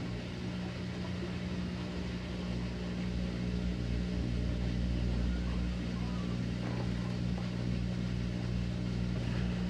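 Maytag top-load washing machine spinning its drum: a steady low motor hum with the drain pump running, slowly growing a little louder as the spin goes on.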